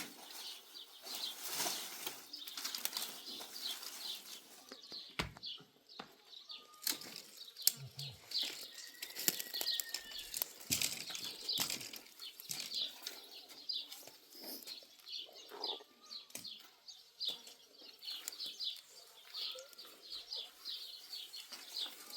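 Small birds chirping over and over in quick, high notes, with scattered sharp clicks and knocks mixed in.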